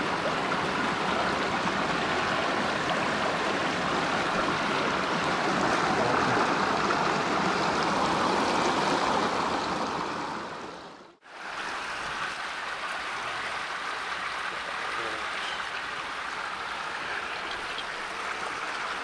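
Creek water rushing over rocks: a steady, even rush. It drops out briefly about eleven seconds in and returns a little quieter.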